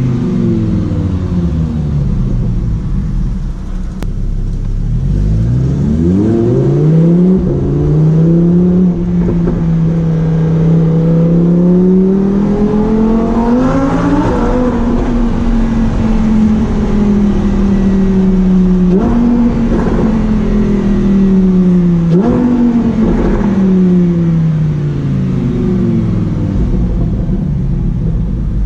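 Lamborghini Huracán Performante's V10 engine and exhaust, loud. The revs fall, climb, hold steady and climb again to a peak partway through. Near the end the engine note jumps up sharply twice with short crackles from the exhaust, and falls away after each jump.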